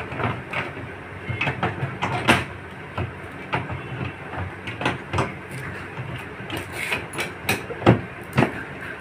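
Plastic top cover of a semi-automatic washing machine being handled and fitted into place: irregular clicks and knocks of plastic against the cabinet, over a steady low background noise.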